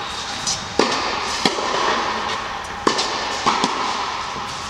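Tennis ball being struck by rackets and bouncing on an indoor court during a rally: four sharp pops, echoing in the large hall.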